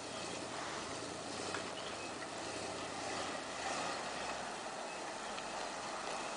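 1977 Ford F-150 4x4 pickup's engine running steadily as the truck ploughs through deep snow.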